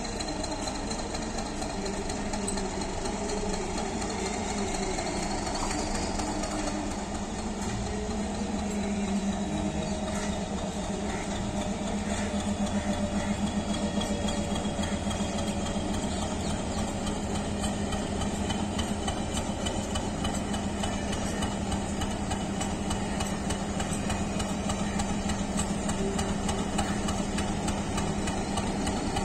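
WDS6 diesel shunting locomotive's ALCO-design diesel engine running steadily at low throttle with a strong, even hum, as the locomotive slowly approaches while shunting a single LHB coach. It grows a little louder about a third of the way in.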